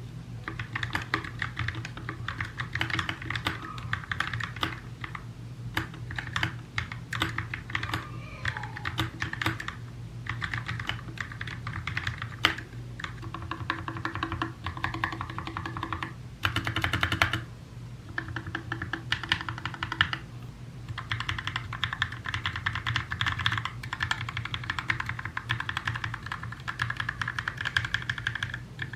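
Continuous typing on a Glorious GMMK Compact 60% mechanical keyboard fitted with lubed Silent Gateron Red linear switches and clipped, band-aid-modded stabilizers: a steady run of rapid keystrokes with a couple of short pauses near the middle. Background music plays underneath.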